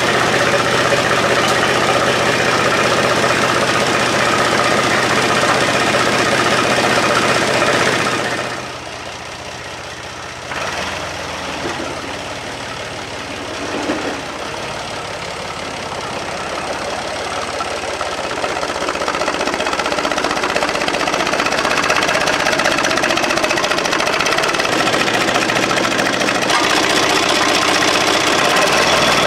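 Diesel engine of a restored UTB 445 DT tractor running steadily. It is loud at first and drops away suddenly after about eight seconds, then grows louder again over the last ten seconds.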